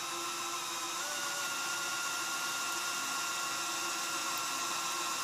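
Electric drill with a quarter-inch bit running steadily at slow speed, boring a hole into the hard metal of a trailer fender. Its motor whine rises slightly about a second in.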